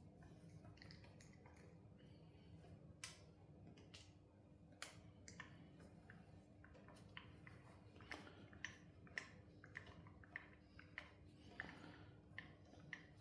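Faint, irregular clicks and light taps of tools and metal parts being handled during engine disassembly, coming more often in the second half, over a steady low hum.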